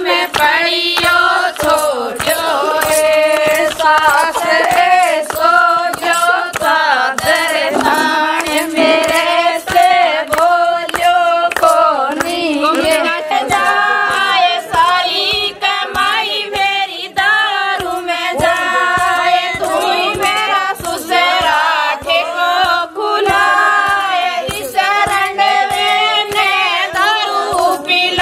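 A group of women singing a wedding folk song together, with hand-clapping keeping a steady beat.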